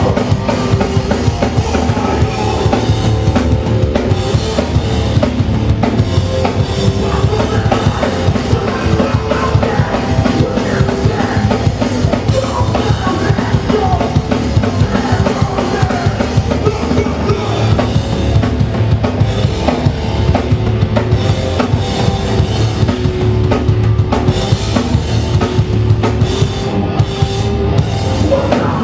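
Hardcore punk band playing live, drum kit to the fore with dense, continuous hitting under the band.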